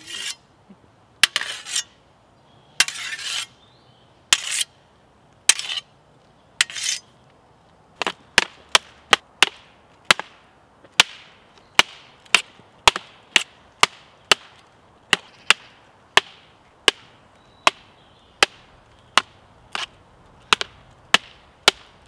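Two practice swords struck together: five heavier clashes, each with a short rattling tail, over the first seven seconds, then a long run of sharp clacks, a quick flurry of about five before settling to roughly two a second.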